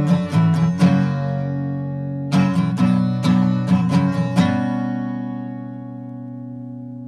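Music: an acoustic guitar strumming chords in short groups, ending on a last chord that rings out and slowly fades.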